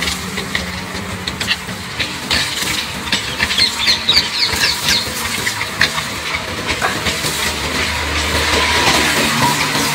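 Young puppies squeaking and whimpering as they shuffle about in dry grass, with the crackle and rustle of the grass. Short high squeaks cluster in the middle, over a steady low hum.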